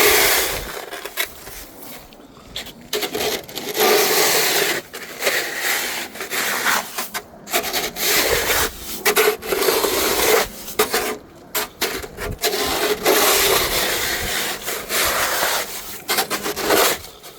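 Snow shovel scraping along a paved walkway in repeated strokes, about one every second or two, as snow is pushed clear.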